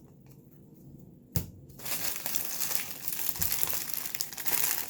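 Trading card pack wrapper being handled: a sharp click, then about three seconds of loud crinkling and crumpling.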